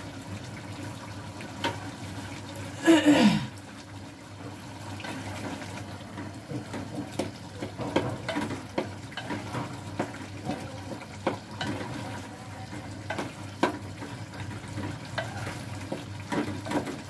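Metal spoon scraping and knocking against a steel pot as beef and cauliflower curry is stirred and fried, over a steady hiss. About three seconds in there is a brief louder sound that falls in pitch.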